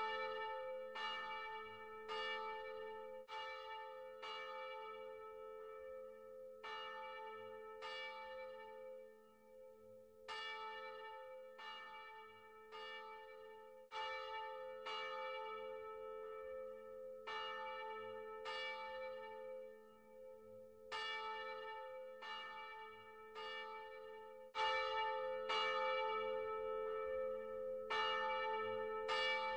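A single church bell rung over and over, roughly one strike a second with a few short pauses, each stroke still ringing and humming when the next one lands.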